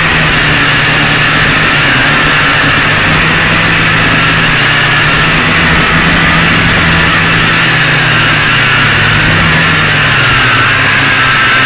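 FPV drone's electric motors and propellers whining, heard close from its onboard camera. The pitch wavers up and down as the throttle changes, with a steady high whine above it.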